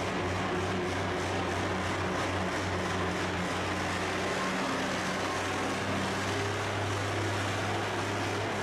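Antique Oliver tractor engine running steadily under heavy load while pulling a weight-transfer sled.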